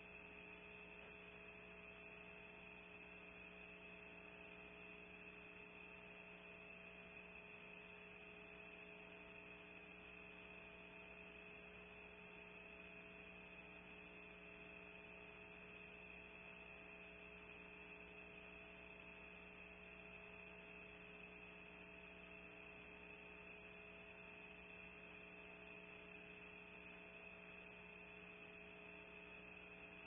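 Near silence: a steady electrical hum with a high whine, the live nest-camera audio feed's own noise, with no owl calls.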